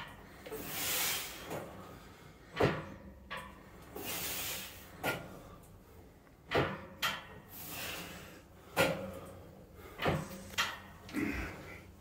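A cable machine's weight stack knocking and clanking through a set of cable crunches, one sharp knock every few seconds. Longer hissing breaths come between the knocks.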